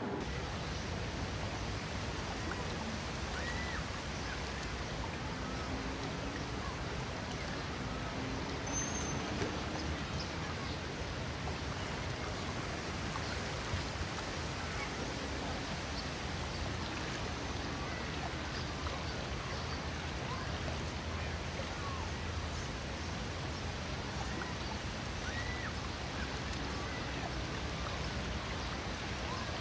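Steady outdoor lakeside ambience: an even wash of noise like lapping water or wind, with faint short chirps scattered through it.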